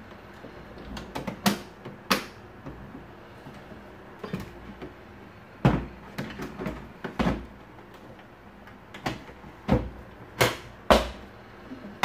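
Irregular sharp plastic clicks and knocks, about a dozen spread unevenly, as parts of a Siemens vacuum cleaner's plastic housing are handled and snapped into place during reassembly.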